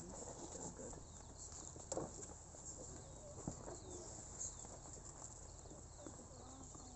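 Quiet outdoor ambience: faint bird chirps over low murmuring and shuffling from a waiting crowd, with a few small knocks.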